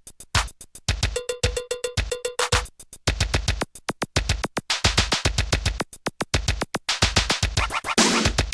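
Electronic background music with a fast drum-machine beat and synthesizer.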